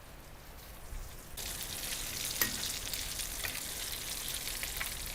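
Breadcrumb-coated egg kababs going into hot palm oil: sizzling starts abruptly about a second and a half in and carries on with crackling pops.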